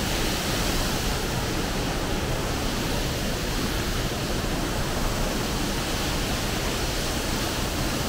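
Waterfall pouring over a rock edge: a steady, even rush of falling water.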